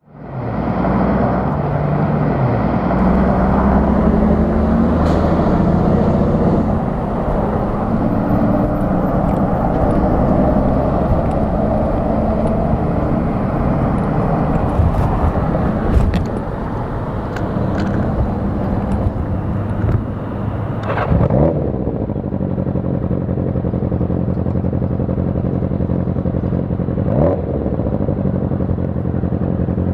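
1981 Yamaha XJ650 Maxim's air-cooled inline-four engine running under way. After about 21 seconds it settles into a steadier, even note, with two brief swoops in pitch at about 21 and 27 seconds.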